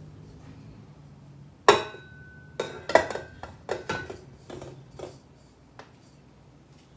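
Stainless steel mixing bowl clanking against a stand mixer's base as it is set on and locked into place: one loud clank that rings briefly, then several lighter knocks over the next few seconds.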